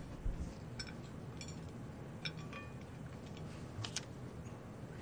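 Cutlery clinking and tapping on china plates as diners eat: a few light, separate clicks, a couple of them ringing briefly.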